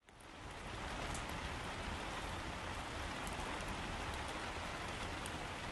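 Steady rain falling, fading in over the first half second.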